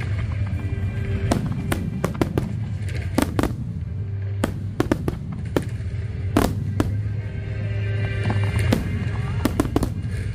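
Aerial fireworks bursting: a dozen or more sharp bangs at irregular intervals, some in quick clusters, over a steady low rumble and background music.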